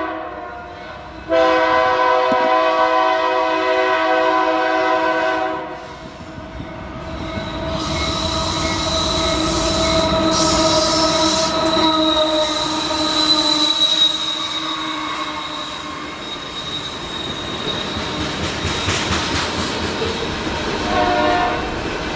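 BNSF freight locomotive's air horn sounds one long blast about a second in, lasting some four seconds. The oil tank car train then rolls by, wheels and rail noise rising, with a steady high-pitched wheel squeal through the middle and the cars continuing to rumble past near the end.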